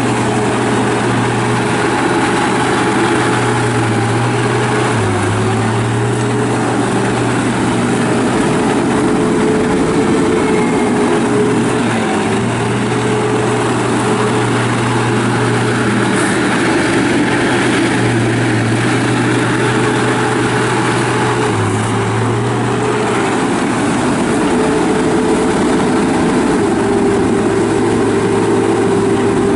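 John Deere CT332 rubber-track skid steer's diesel engine running steadily, its pitch dipping briefly twice and recovering.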